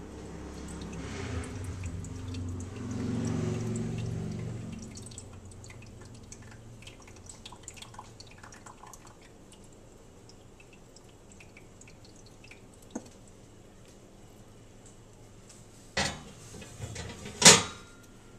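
Hot grease crackling and popping in a glass baking dish under a bacon-wrapped meatloaf fresh from the oven. There is a low scraping rumble in the first few seconds, and two sharp knocks near the end.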